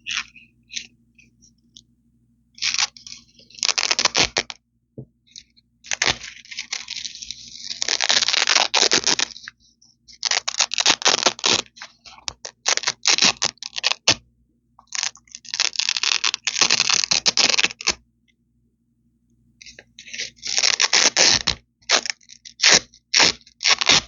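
Velcro (hook-and-loop) strips ripped apart close to the microphone: several crackly tearing rips, each lasting one to four seconds, with short silent pauses between them.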